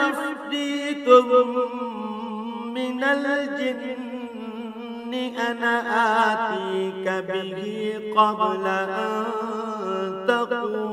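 A man reciting the Quran in Arabic, chanted melodically in tajwid style. His single voice holds long, ornamented notes that waver up and down, with short pauses for breath.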